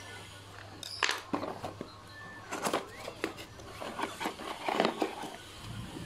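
Small cardboard toy box being opened by hand and a plastic toy car pulled out of its packaging: a series of irregular rustles, scrapes and clicks.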